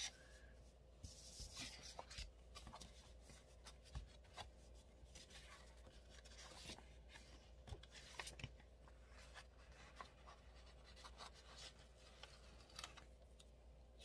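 Faint rustling and scattered soft ticks of paper being handled: loose planner pages and a sticker book being moved and smoothed by hand.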